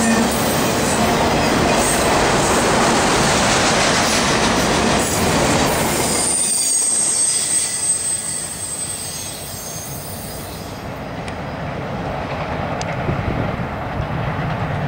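Loaded autorack freight cars rolling past close by on a curve, wheels clattering and squealing on the rail. A high, thin wheel squeal rings out about six seconds in, and the rolling noise then falls off as the last car passes and moves away.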